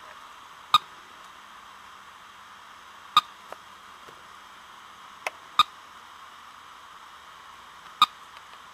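Steady static hiss from a radio-telemetry tracking receiver, broken by about five sharp clicks at irregular intervals; the snake itself does not rattle.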